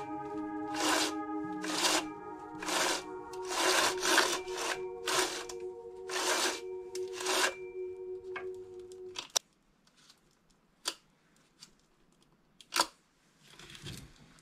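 Background music of sustained, held chords with a rasping scrape about once a second; the music stops about nine seconds in, leaving near quiet broken by a few light clicks.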